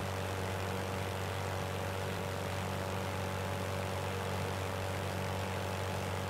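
Light aircraft's engine and propeller heard on board in steady cruising flight: an even drone with a low hum and a steady rush of air over it, unchanging throughout.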